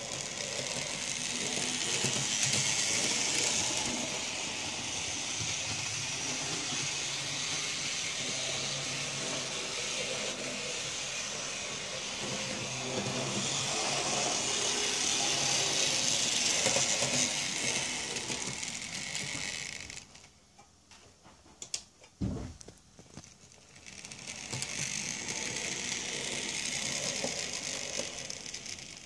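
Minitrix N gauge Class 42 Warship model diesel locomotive running with its coaches: the steady whirr of its small electric motor and the hiss and rattle of its wheels on the track, swelling and fading as it goes round. The sound drops away for a few seconds about two-thirds of the way through, with a single low thump in the gap, then picks up again.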